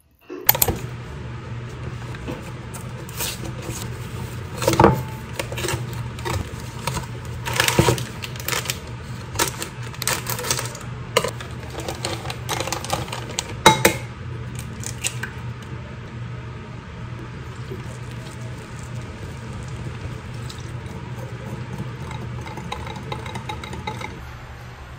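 Kitchen prep sounds at a glass mixing bowl: clinks and knocks as pancake mix is poured in and handled, then steadier whisking of batter against the glass over the last several seconds. A low steady hum runs underneath.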